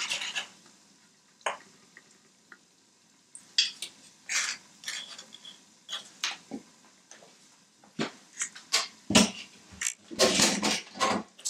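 Wooden spoon stirring and knocking in a stainless-steel saucepan of blended bean sauce: irregular scrapes and a few separate knocks.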